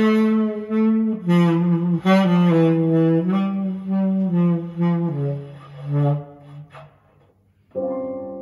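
Recorded saxophone music played through Pioneer S-933 loudspeakers driven by a Sansui AU-999 amplifier. A slow melody of held notes falls in phrases, dies away briefly near the end, and a new sustained note begins.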